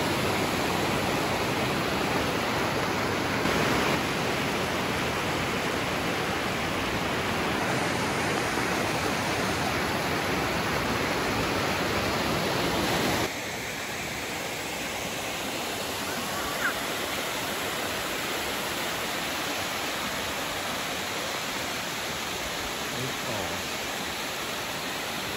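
Rushing water from a river or waterfall: a loud, steady rush that drops a step in level about halfway through.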